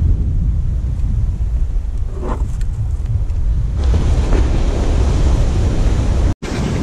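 Wind buffeting the microphone over ocean surf breaking on a sandy beach; about four seconds in, the hiss of a breaking wave washing up the shore swells. The sound cuts out for an instant near the end.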